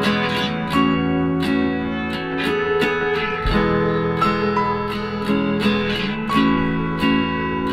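Background music: an acoustic guitar strumming chords at a steady, even pace.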